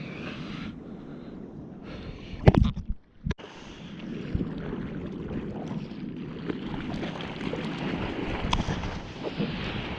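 Sea water rushing and wind buffeting the microphone, with one loud thump and splash about two and a half seconds in, a moment's near silence after it, then the wash building again.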